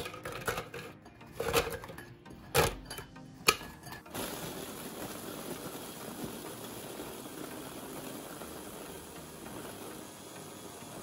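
A few sharp knocks on a plastic chopper bowl holding shortbread biscuits, then about four seconds in the electric chopper's motor starts and runs steadily, grinding the biscuits into fine crumbs, and stops near the end.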